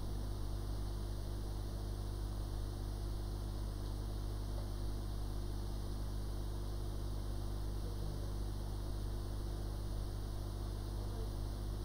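Hot air rework station blowing a steady hiss of hot air onto an iPhone 6 Plus logic board, reflowing the touch IC back into place, over a low electrical hum.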